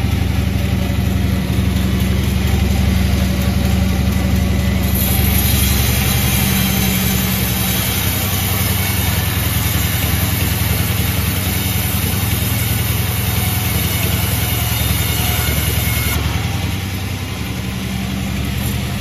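Sawmill machinery running steadily with an engine-like hum. A high hissing noise, typical of the saw cutting through wood, joins about five seconds in and stops about three seconds before the end.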